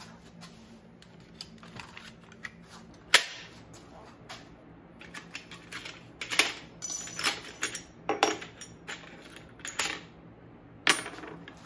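Steel washers and other small metal hardware clinking and clacking as they are picked through in a parts drawer and set down on a wooden workbench: a run of irregular sharp clicks, the loudest a single clack about three seconds in.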